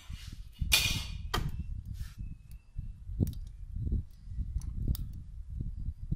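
Bamboo skewers of chicken wings handled against a wire mesh grill grate: a short scrape about a second in and a few sharp clicks, over a low rumble.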